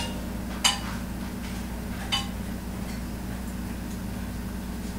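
Two light clinks of cookware at the stove, about a second and a half apart, over a steady low hum.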